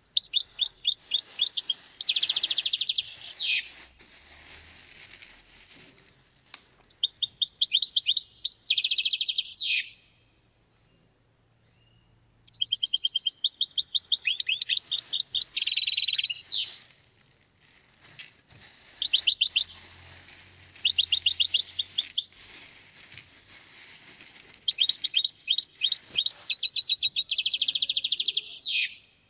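European goldfinch singing: six bursts of song, each a few seconds long, made of rapid runs of repeated high trilled notes and dense buzzy stretches, several ending in a quick downward sweep, with short pauses between.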